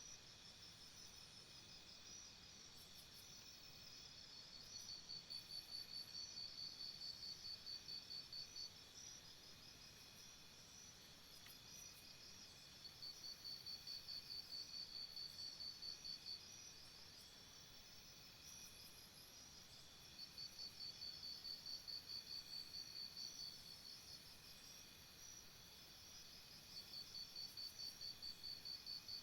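Faint jungle insect chorus: a steady high buzzing, with one insect's rapid pulsed trill coming in bouts of three to four seconds about every seven seconds.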